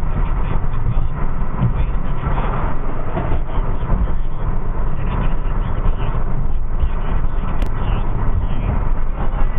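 Steady road and engine noise heard inside a car's cabin as it drives at highway speed, with a continuous low rumble.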